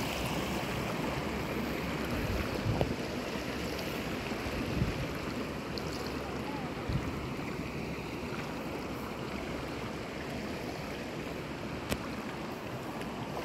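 Shallow river water splashing and swishing around legs wading slowly through it, over the steady rush of the flowing stream. A few knocks in the middle and one sharp click near the end.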